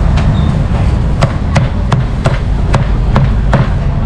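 Cleaver chopping crispy pork: a run of about seven sharp strokes, roughly three a second, starting about a second in, over a steady low rumble.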